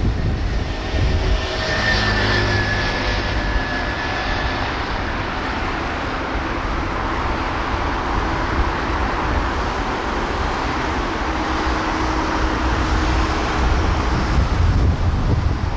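Steady outdoor rumble and hiss from wind on the microphone, with a faint drone of distant machinery.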